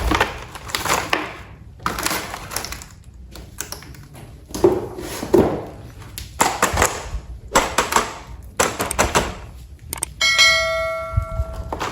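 Plastic toy train parts and packaging being handled: a run of separate clicks, knocks and rustles. Near the end comes a single bright bell-like ring that lasts just under two seconds.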